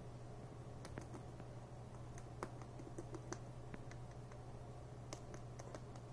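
Rabbit gnawing an applewood stick: small, irregular crisp crunching clicks, several a second at times, over a steady low hum.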